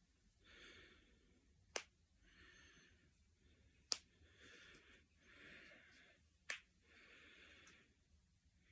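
Knuckles and finger joints cracking: three sharp single pops a couple of seconds apart, with faint hissing sounds between them.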